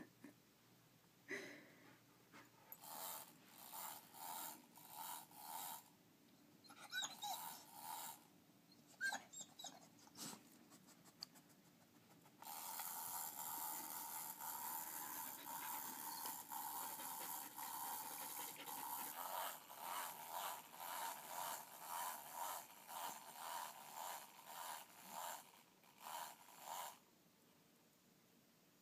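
Australian Shepherd panting faintly and rhythmically, about two breaths a second, in a few short spells and then a longer steady run that stops a couple of seconds before the end.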